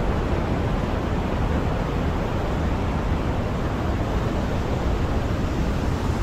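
Steady rushing of a fast mountain river running over rocks.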